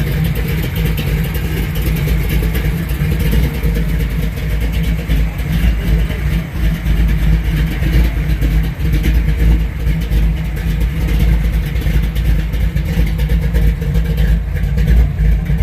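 A hot-rod car engine idling loudly, a deep steady rumble with a quickly pulsing beat.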